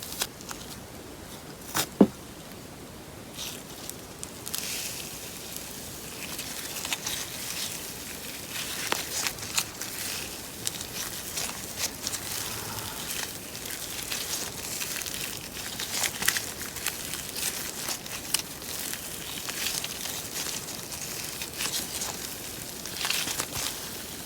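Slime being squeezed and poked by hand, giving irregular soft sticky crackles and small pops, with a sharp click about two seconds in.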